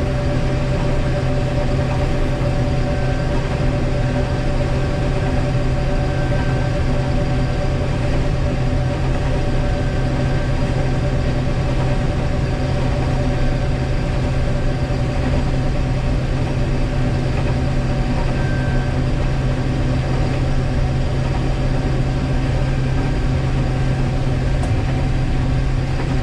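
Combine harvester running steadily: an even engine and machinery drone with a few constant hum tones, heard from inside the cab.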